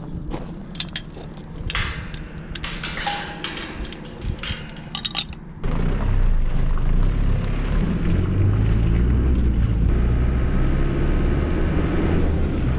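A few seconds of scattered knocks and clinks, then, about five and a half seconds in, a sudden switch to the steady low rumble of a vehicle driving along a sealed road.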